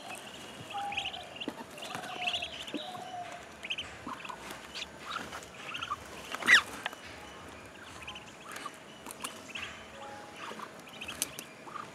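Newly hatched ducklings peeping in many short, high calls, with one louder, rising call about six and a half seconds in.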